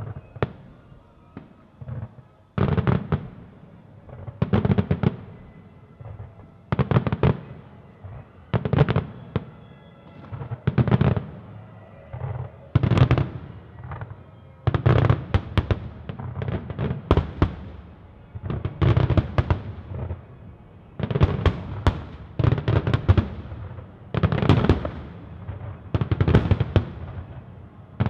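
Aerial firework shells bursting one after another, each a sharp boom followed by a short crackling tail. The bangs come about every two seconds at first, then faster and overlapping from about halfway on.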